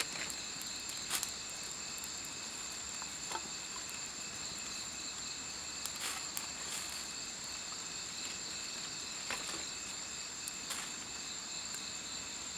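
Steady, high-pitched chorus of night insects trilling without a break. A handful of sharp wood snaps and cracks from the campfire and its sticks sound over it.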